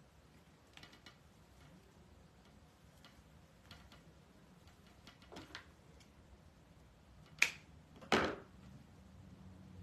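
Faint rustling of deco mesh and ribbon being handled, then two sharp clicks a little under a second apart near the end, from a pair of scissors being handled on the countertop.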